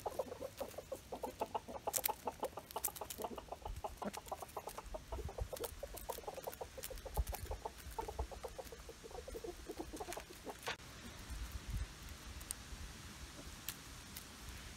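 Chickens clucking softly in fast runs of short notes while they peck at beetles, with a few sharp pecking clicks. The clucking thins out about eleven seconds in.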